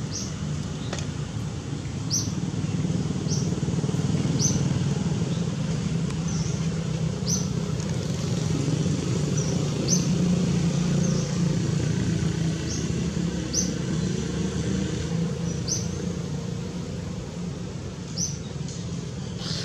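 Outdoor ambience: a steady low rumble like a running engine, swelling slightly midway, with a short high chirp repeating about once a second.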